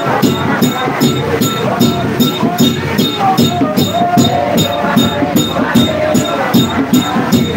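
A congregation singing over a large hand drum beaten in a steady beat, about two to three strokes a second, with a bright rattle on each stroke.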